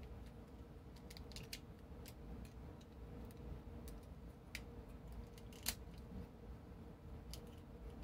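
Quiet room with a faint steady hum and about ten light, scattered clicks, the loudest a little before six seconds in.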